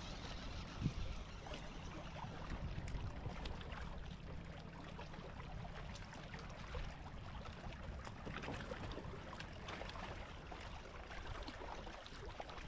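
Faint water lapping around a kayak on the lake, with a low wind rumble on the microphone and a few light clicks.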